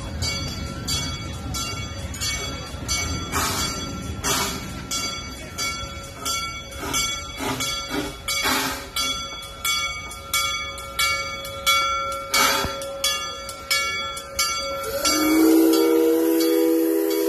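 Steam locomotive arriving with its bell ringing in a steady rhythm, about one and a half strokes a second. About 15 s in, its whistle blows a long multi-note chord.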